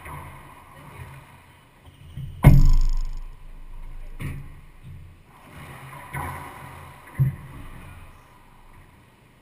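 Racquetball rally: the ball is struck by racquets and smacks off the court walls, four sharp hits that echo briefly. The loudest comes about two and a half seconds in.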